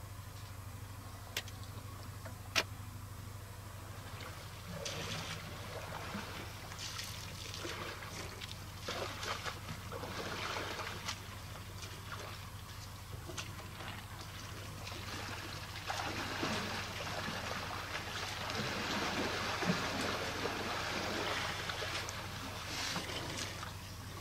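Water splashing and trickling in a shallow waterhole, in irregular swells that grow louder past the middle, over a steady low hum, with two sharp clicks in the first few seconds.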